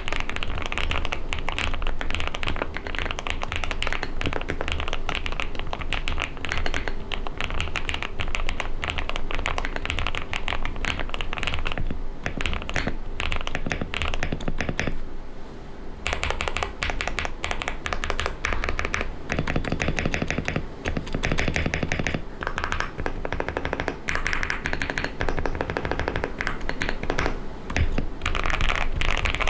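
Fast typing on a QK65 mechanical keyboard fitted with lubed Akko CS Silver linear switches: a dense run of keystroke clacks, with a short pause about halfway through.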